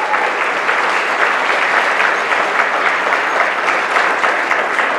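A large audience of a few hundred clapping steadily.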